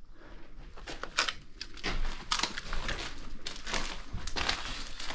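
Footsteps crunching over rubble and debris, a run of irregular crunches and crackles.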